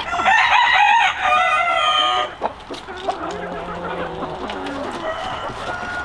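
A rooster crows for about two seconds at the start, then chickens cluck more quietly.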